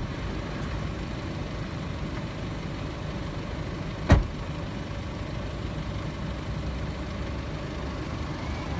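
A motor vehicle engine idling with a steady low rumble, with one sharp knock about four seconds in.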